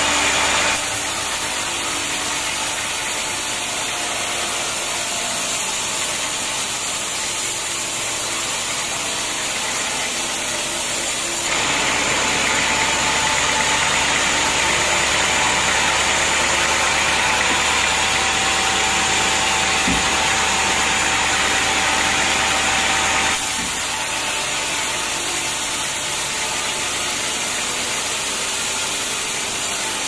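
Large band sawmill running steadily, its blade sawing through teak timber. For about twelve seconds in the middle the sound turns louder and hissier.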